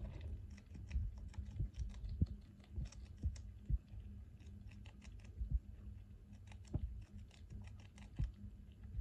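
Richardson's ground squirrel chewing food held in its front paws: quick, irregular crunchy clicks, with a few dull knocks among them.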